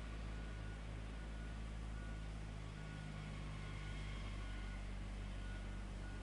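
Heavy construction machinery engine running steadily at a low rumble, with a faint short beep repeating about once a second.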